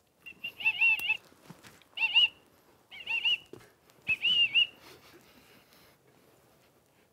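Whistles held in the mouth toot in four short, wavering bursts, set off by laughter: the players fail to hold the whistle silent.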